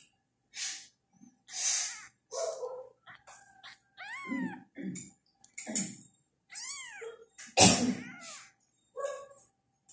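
Tabby kitten meowing over and over, about a dozen short cries. Some are harsh and some have a rising-then-falling pitch, and the loudest comes near the end.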